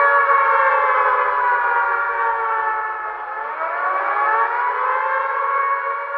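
Civil defense siren wailing in several layered tones, its pitch sinking slowly; about three seconds in, a fresh rise winds up from low to join the wail.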